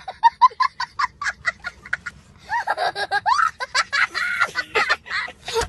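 A young boy laughing hysterically: a fast run of short ha-ha-ha bursts, then longer laughs that slide up and down in pitch.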